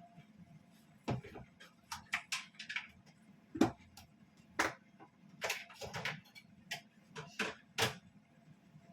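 A series of irregular sharp clicks and light knocks, roughly a dozen or more, over a low steady background hum.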